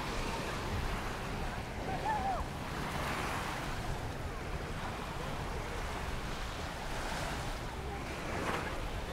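Surf washing onto a sandy beach, a steady wash of noise with wind rumbling on the microphone.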